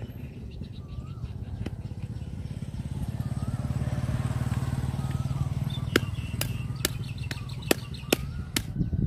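A small motorcycle passes by, its engine hum swelling and then fading. About two-thirds of the way in, a cleaver chops seven times, sharp and roughly two a second, into a striped catfish on a cutting board.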